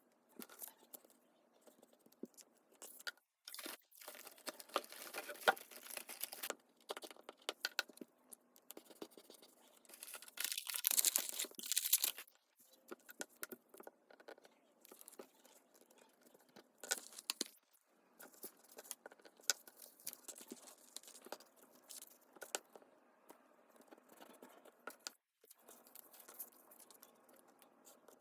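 Paper and cardstock being handled close up: rustling, crinkling and tearing with small taps and clicks, and a longer, louder rustle about halfway through.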